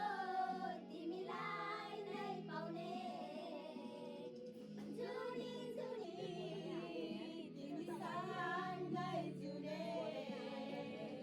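A song with a voice singing a wavering melody over steady held low notes of accompaniment.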